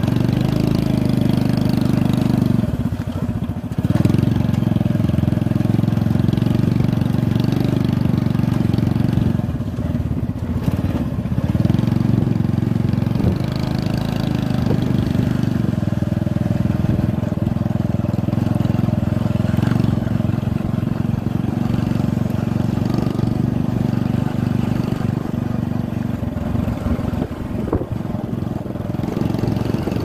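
Small motorcycle engine running steadily while riding along a dirt track, easing off briefly a couple of times.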